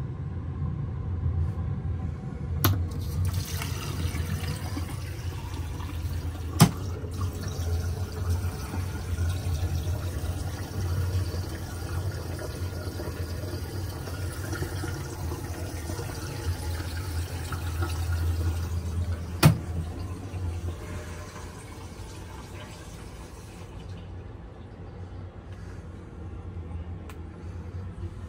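Water running steadily for most of the stretch, over a low rumble, with a few sharp clicks.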